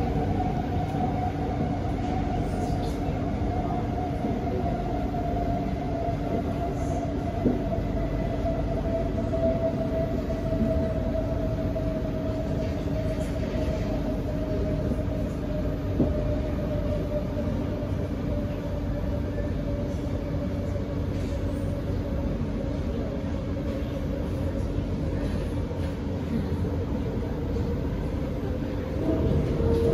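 Inside an SMRT C151B electric train car running on the line: a steady rumble of wheels and running gear with a motor whine that slowly falls in pitch as the train loses speed. Near the end a second whine starts to rise in pitch and the noise grows a little louder.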